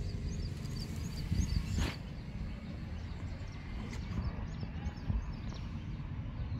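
Small birds chirping in short repeated notes over a steady low rumble.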